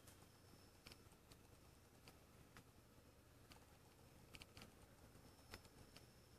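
Near silence: quiet room tone with faint, irregular small clicks.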